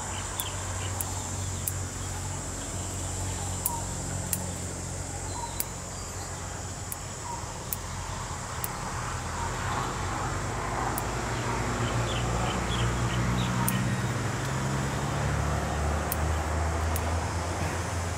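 A low steady hum that grows louder in the second half, with faint bird chirps and a few light clicks scattered through.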